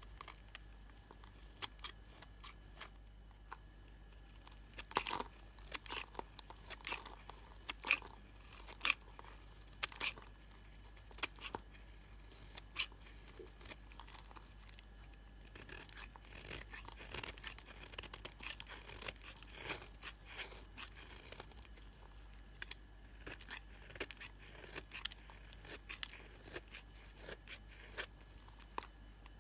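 A blade cutting into old bar soap, making irregular crisp crunching and scraping clicks, some louder than others.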